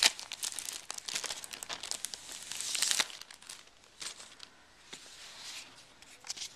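Plastic packaging sleeve crinkling and rustling as it is pulled off a new notebook, dense and loud for the first three seconds, then fainter scattered rustles.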